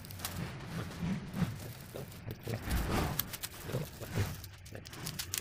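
Plastic wrapping being handled and pulled off a fishing rod, giving irregular rustling and crinkling with scattered small clicks.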